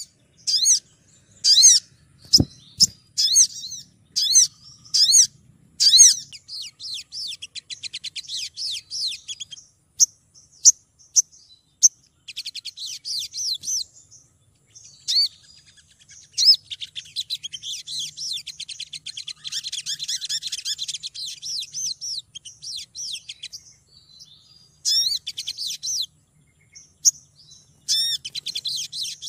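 Female olive-backed sunbird calling: sharp, high chips repeated in quick series, broken by stretches of rapid twittering.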